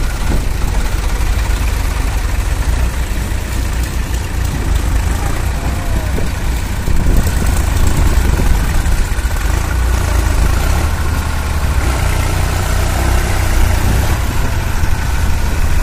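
Diesel farm tractor engines running steadily with a low rumble while the tractors pull trolleys through mud. The sound gets a little louder about seven seconds in.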